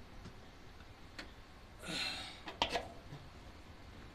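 Hands working among the wires and hoses of a truck's engine bay: a short rustle about two seconds in, then two sharp clicks close together.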